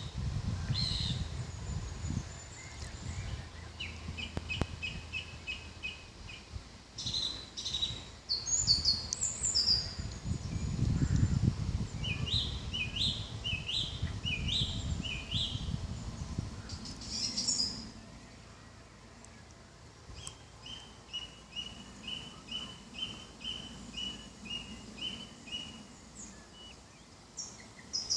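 Songbirds singing outdoors: a series of separate high phrases of trills and quick repeated notes, ending with a run of about a dozen evenly spaced notes. A low rumble runs under the first half and then fades.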